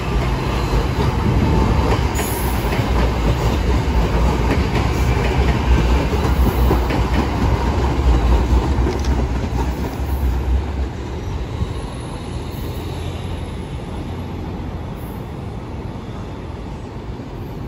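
New Jersey Transit commuter train passing close by at speed, its wheels rumbling steadily on the rails. The sound eases off after about eleven seconds as the last cars pull away.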